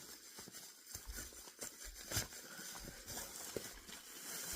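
Plastic packaging rustling, with scattered light knocks and clicks as kit parts are handled.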